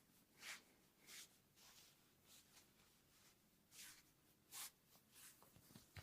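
Near silence, with faint, brief swishes of hands rubbing over hair and skin during a head massage, about seven soft strokes at uneven intervals.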